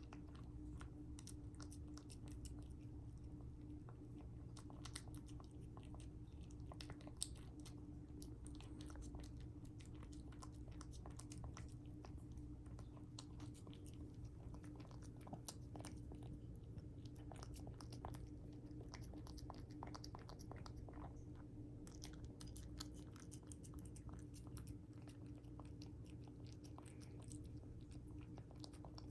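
A cat chewing its food: a faint, irregular run of small chewing clicks and smacks over a steady low hum.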